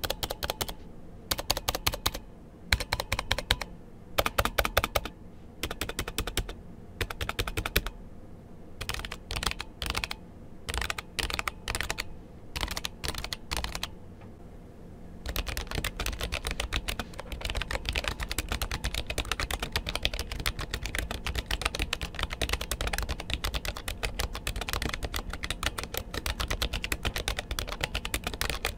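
Typing on a Royal Kludge RK929 slim mechanical keyboard with Kailh low-profile brown switches. There are short runs of keystrokes with pauses between them at first, then steady fast typing from about halfway through.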